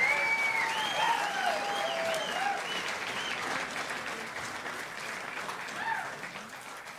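Audience applauding and cheering, fading away over the seconds.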